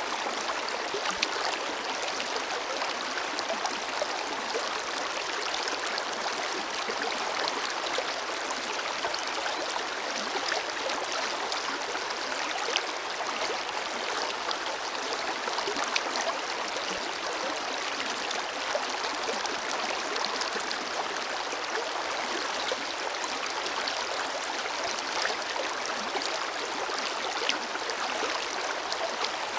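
A forest river flowing over stones: a steady rush of water, with small splashes and gurgles scattered through it.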